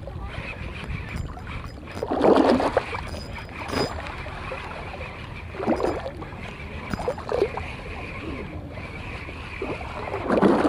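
Water sloshing against a concrete seawall in a few short swells, while a small spinning reel is wound in against a hooked fish.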